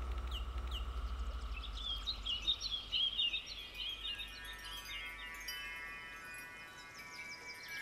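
Ambient soundtrack: a low drone dies away under a flurry of short bird chirps in the first half, then a layer of held, ringing chime-like tones comes in.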